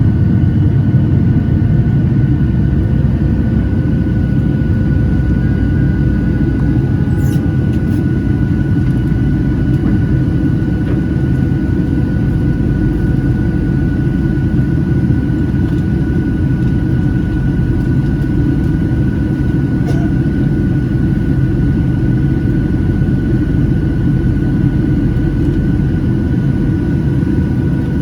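Cabin noise inside a Boeing 737-800 with CFM56-7B engines: a loud, steady low rumble with a few steady whining tones over it, neither rising nor falling.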